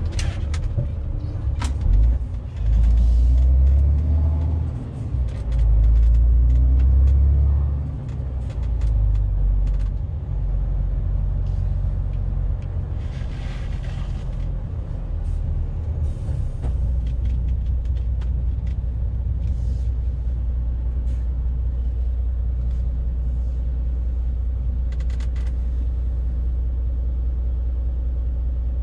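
MAN TGX 470 truck's straight-six diesel engine heard from inside the cab: a low rumble that swells louder for several seconds early on, then settles into a steady low drone. A few short hisses of air and scattered light clicks and rattles come over it.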